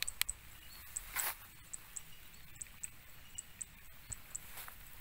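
Faint, short, high chirps from a small animal, repeating a few times a second, with a brief rustle about a second in.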